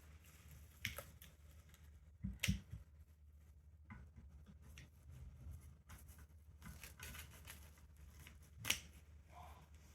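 Faint handling of a new balance bike's packaging, with three short sharp clicks, about one second in, about two and a half seconds in, and the loudest near the end.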